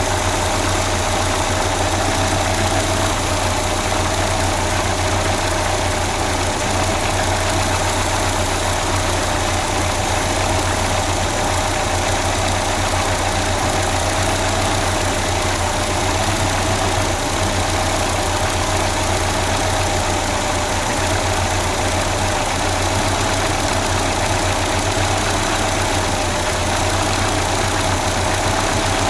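Peugeot 505's engine idling steadily on a newly swapped carburetor.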